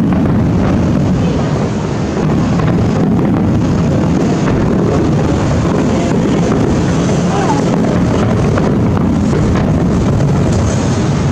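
Distant fireworks barrage: a steady low rumble of many bursts blurring together.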